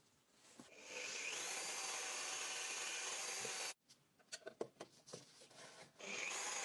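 A power tool running with a steady high hiss, its pitch rising as it spins up just under a second in. It cuts off suddenly about halfway through, a few light knocks and taps follow, and it starts up again near the end.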